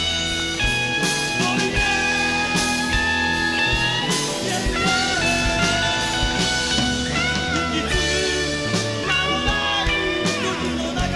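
Background rock music: sustained, bending guitar-like lead notes over a steady drum beat.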